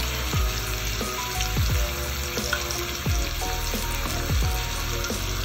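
Thin slices of pork belly and beef sizzling steadily on the grill plate of a tabletop Korean barbecue grill and hot pot combo, with music playing underneath.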